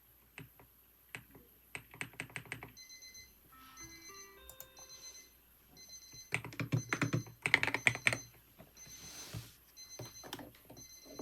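Computer keyboard typing in bursts of keystrokes, over a timer alarm beeping in a repeating pattern of short, high beeps about once a second, with a brief stepped chime tune under the first beeps. The alarm is typical of a study timer signalling the end of the session.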